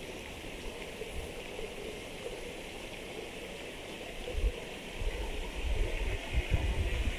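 Steady rushing of flowing stream water, with low rumbling thumps on the microphone from a little past halfway.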